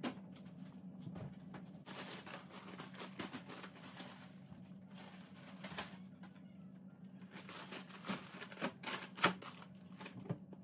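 Plastic grocery packaging rustling and crinkling, with scattered light knocks and taps as packets and tubs are picked up off a stone worktop and put away. A steady low hum runs underneath.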